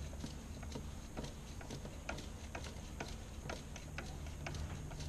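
Light, irregular clicking and ticking, about three a second, as aluminium MIG welding wire is fed by hand off its spool and pushed through the wire feeder's guides and drive rolls.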